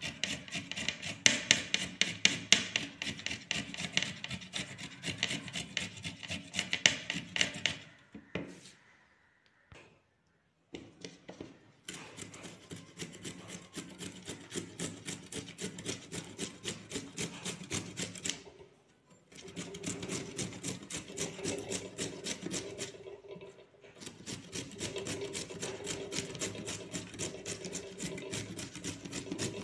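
Radish being grated on a flat stainless-steel hand grater: quick, even rasping strokes, several a second, in long runs broken by short pauses.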